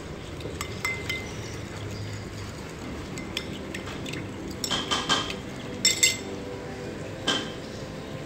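A metal spoon clinking against a glass bowl while stirring a little liquid, with scattered light taps and a cluster of sharper clinks about five to six seconds in.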